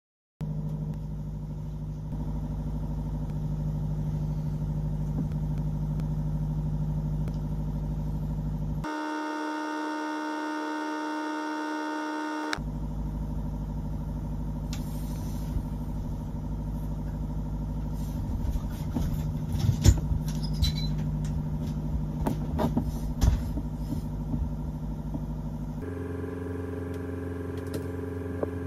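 Steady low hum of the boat's machinery heard inside the cabin. Its tone shifts for a few seconds about a third of the way in and again near the end, with scattered clicks and knocks in the second half.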